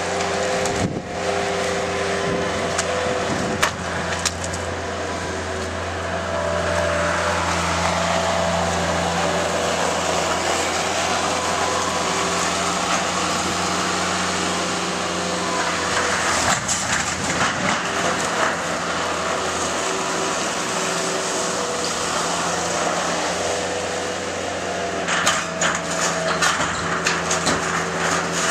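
Bobcat 753 skid-steer loader's diesel engine running hard, its pitch rising and falling as it works, while the wooden frame and corrugated sheet metal of a shed crack, splinter and clatter as it is torn down. Sharp cracks come about a second in and again a few seconds later, more in the middle, and a dense run of snapping and clattering near the end.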